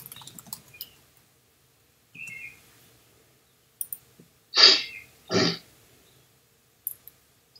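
A man clearing his throat: two short, loud coughs about a second apart, with a few faint clicks around them.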